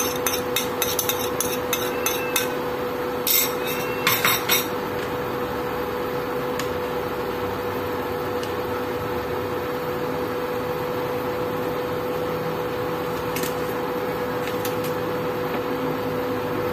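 A spoon clinks and scrapes against a small ceramic bowl several times in the first few seconds as the last of the coconut milk is emptied into the pan. Under it and afterwards, a steady hiss with a constant hum from the induction cooktop heating the curry.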